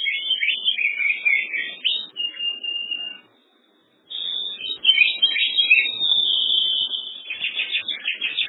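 Songbird singing: quick chirps and trills mixed with long, held high whistles, broken by a short pause about three seconds in.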